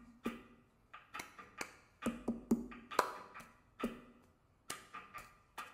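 Cup-game rhythm played with hands and a cup on a pillow-covered desk: a repeating pattern of sharp claps and taps and the cup being lifted and set down, about two to three strokes a second.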